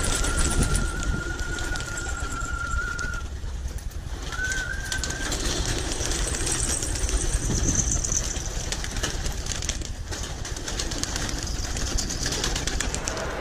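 Domestic pigeons at a rooftop loft as they are let out. A long steady whistle runs through the first three seconds, and a short rising whistle follows about four seconds in.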